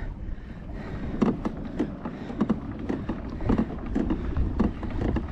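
Footsteps of a person walking, about two steps a second, over a low rumble of wind on the microphone.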